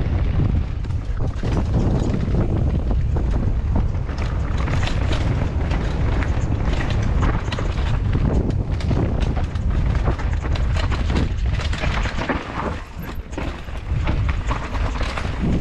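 Mountain bike descending a dirt singletrack at speed: a steady low rumble of wind buffeting the GoPro's microphone, over tyres on dirt and a constant clatter of sharp knocks as the bike rattles over bumps. It eases briefly near the end.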